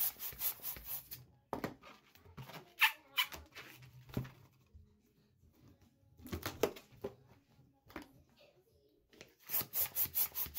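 Hand balloon pump pushing air in a rapid run of hissing strokes, about five a second, inflating a 6-inch latex heart balloon: once at the start and again near the end. In between come rubbing and handling noises from the inflated latex balloons.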